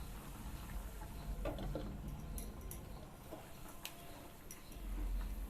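Raw mango curry simmering in a pan on the stove: scattered, irregular small pops and ticks over a steady low hum.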